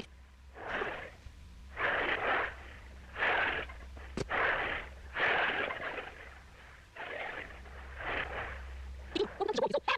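Sitcom soundtrack sped up about five and a half times: a run of short breathy, wheezing bursts, roughly one a second, from a voice sped far past recognisable speech, with a sharp click about four seconds in.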